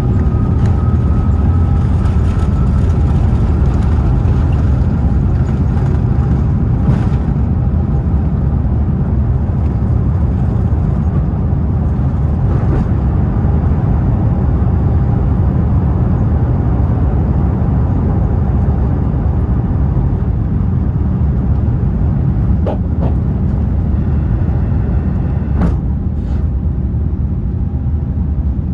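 Airbus A350-900's Rolls-Royce Trent XWB turbofan engines at high takeoff power, heard inside the cabin: a loud, steady low roar with a steady whine on top that rises slightly in the first seconds. A few faint cabin rattles are heard.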